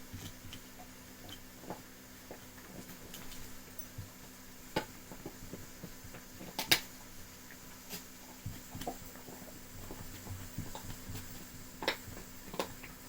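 A dog gnawing and knocking a chew about: scattered clicks and knocks, with one sharper knock about halfway through and two more near the end.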